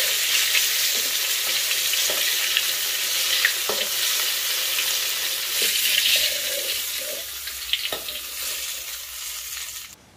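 Batter-coated shrimp sizzling as they fry in oil in an aluminium wok, with a few sharp clinks of a metal wok spatula against the pan as the finished pieces are turned and lifted out. The sizzling cuts off suddenly near the end.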